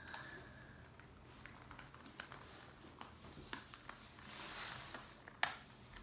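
Faint plastic clicks and taps of a 3x3 speed cube being twisted and pried at to work a corner piece loose, with one sharper click about five and a half seconds in.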